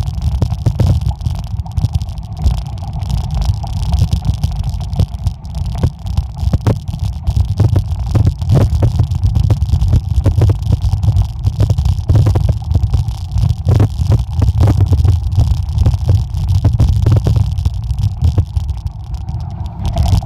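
Mountain bike rolling over a gravel road: wind buffeting the microphone as a loud, steady low rumble, with frequent short clicks and rattles from the tyres on gravel and the bike over the bumps.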